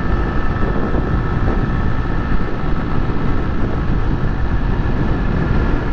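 Honda Titan 125's air-cooled single-cylinder four-stroke engine running steadily while the motorcycle cruises at road speed, mixed with heavy wind rush over the microphone.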